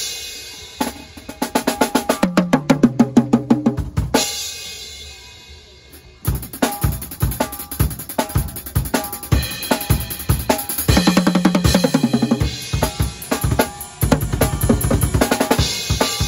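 Acoustic drum kit played solo: a cymbal crash, then a fast roll down the toms falling in pitch that ends in a crash ringing out about four seconds in, then a beat on bass drum, snare and cymbals broken by more quick tom fills.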